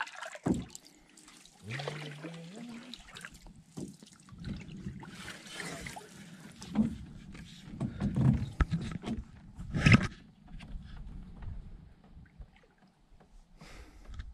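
Canoe being paddled: water splashing and dripping off the paddles, with irregular knocks against the hull and one louder knock or splash about ten seconds in.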